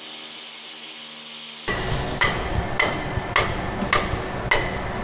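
Metal tool knocking at the fuel filter under a Mack LR64 garbage truck: sharp metal-on-metal taps, about two a second, each with a short ring, starting about two seconds in. Before them, the faint fading tail of the title-card music.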